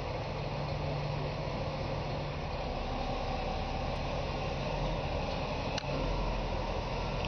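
Engine of a heavy tire-handling machine running steadily, with a brief click about six seconds in.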